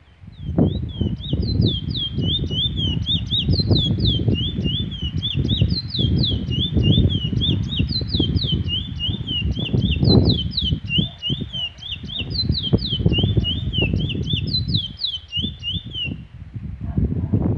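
A caged Trinidad bullfinch sings a long, fast song of short repeated phrases: quick high notes sliding up and down, stopping a little over a second before the end. Wind rumbles and buffets the microphone throughout.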